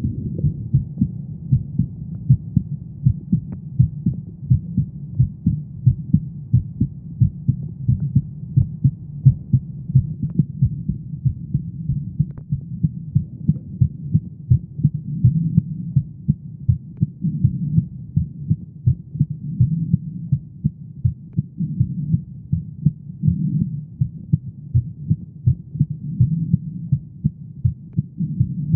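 A woman's heartbeat: low-pitched beats repeating in a steady, regular rhythm.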